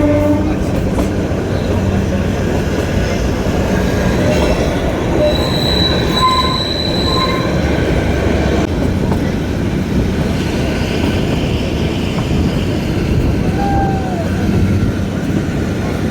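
Kalka–Shimla narrow-gauge toy train running, heard from on board as a steady rumble of wheels on rail. Short, high wheel squeals come and go in the middle, with a brief sliding squeal near the end.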